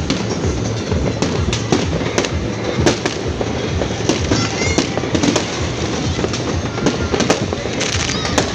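Fireworks display: many sharp bangs and crackles, several a second, over a continuous dense rumble of further bursts.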